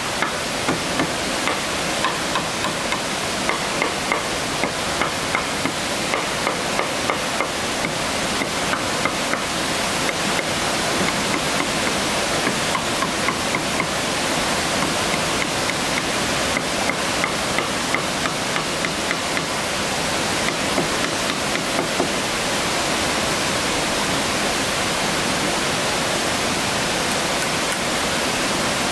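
Rapid, evenly spaced hammer blows on wood, about two a second, over a steady rushing hiss; the blows thin out after about twenty seconds.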